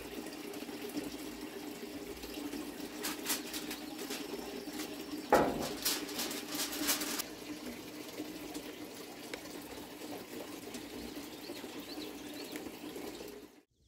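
Gas grill burners hissing steadily with the lid open, while a baking dish is handled on the grate: a sharp clank about five seconds in and a few light clatters around it. Birds chirp faintly near the end.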